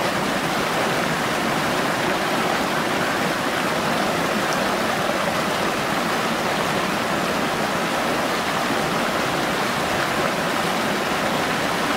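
Water pouring over a low weir into churning white water: a steady, unbroken rushing.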